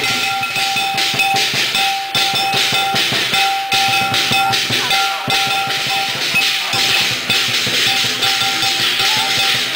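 Chinese percussion ensemble playing a fast, steady beat: drum strikes with ringing metal percussion held over them.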